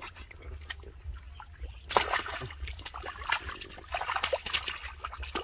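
Hands sloshing and scooping through shallow muddy water, with irregular small splashes and trickling water as a fish is groped for and lifted out by hand.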